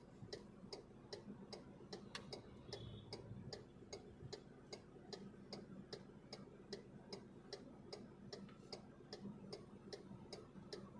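MG Gloster's turn-signal indicator ticking steadily inside the cabin, soft evenly spaced clicks at roughly three a second over a faint hum. The indicator is being held on to tell the automatic parking assist which side to search for a slot.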